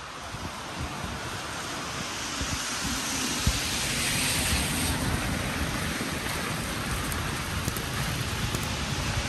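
Steady hiss of rain falling on a city street, with wind buffeting the microphone underneath. The hiss swells a few seconds in, then settles.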